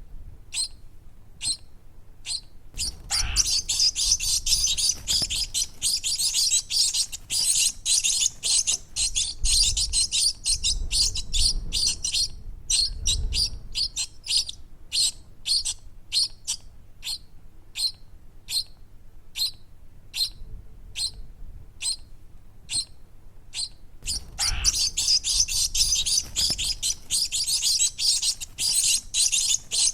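Small birds chirping: rapid, high, short chirps. They thicken into a dense stretch of chirping about three seconds in that lasts some ten seconds, thin out to single spaced chirps, then turn dense again near the end.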